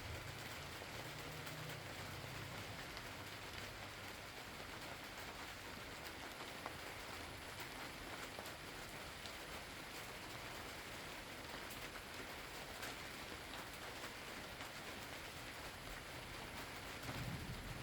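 Steady rain falling, an even hiss with scattered drop taps. Near the end a low rumble of thunder starts to build.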